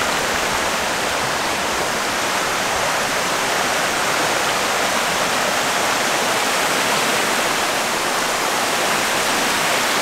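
Fast-flowing creek rushing over rocks and small cascades, a steady, even wash of water noise.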